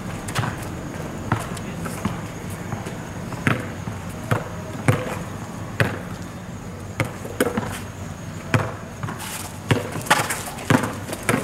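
A basketball bouncing on an asphalt court as it is dribbled, with sharp bounces coming irregularly, about once a second.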